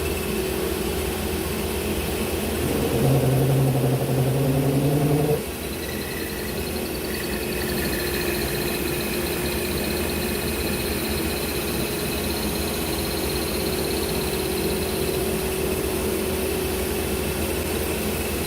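Table saw running steadily while a wooden piece is turned against the blade in a taper lathe jig. A louder hum about three seconds in stops suddenly a couple of seconds later, and a faint high whine follows for several seconds.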